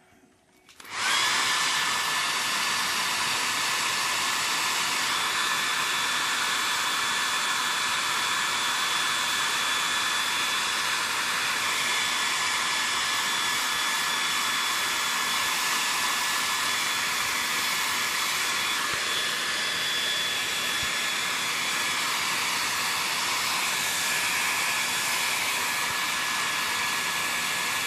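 Handheld hair dryer switching on about a second in, then running steadily: a rush of air with a thin, steady whine over it, blowing onto a freshly painted model.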